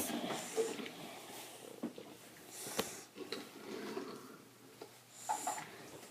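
Faint handling sounds of Play-Doh being pressed and fitted together, with a few light clicks.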